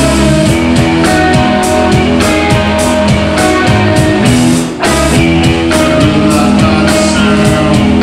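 Live rock band playing loudly: two electric guitars over a drum kit, with steady drum hits and a brief drop in the sound nearly five seconds in.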